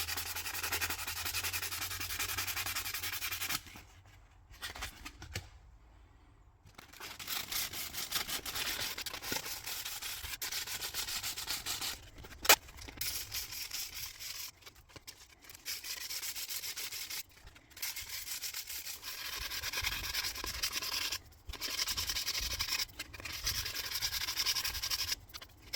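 Sandpaper rubbing back and forth by hand on a custom lock pick's acrylic handle, 240 and 120 grit for final shaping: quick rasping strokes with a few short pauses and one longer pause about four seconds in. About twelve seconds in there is a single sharp click.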